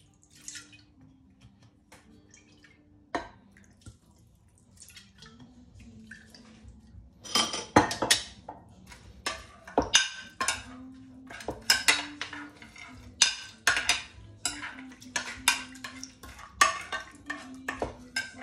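A metal ladle clinking and scraping against a glass baking dish while stirring a liquid marinade. Irregular sharp clinks, several a second, start about seven seconds in after a quieter stretch with only a few faint clicks.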